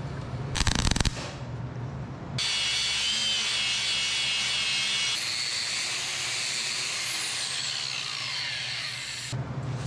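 Angle grinder grinding a steel weld: a steady high whine with the hiss of the disc on metal, starting about two and a half seconds in, changing in tone about halfway, and cutting off just before the end. Before it, a brief cluster of clicks and knocks.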